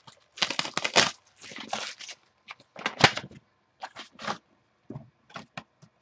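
Foil wrapper of a '13 Finest baseball card pack being torn open and crinkled by hand, in irregular crackling bursts, the loudest about a second in and about three seconds in.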